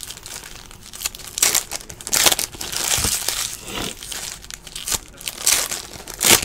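Foil trading-card pack wrapper being torn open and crinkled by hand: irregular crackling rustles, with the loudest crinkle near the end.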